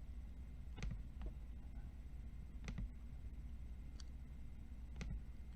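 Several short, sharp clicks at irregular intervals, about six in all, over a low steady hum: clicking at a computer while working through a list.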